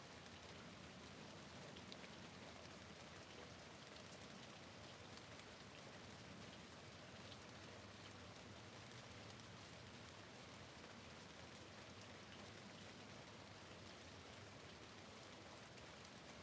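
Steady rain, faint: an even soft hiss with scattered small drop ticks.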